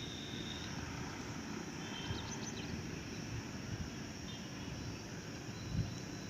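Outdoor ambience: a steady low rumbling noise with faint high bird chirps, a short run of them about two seconds in.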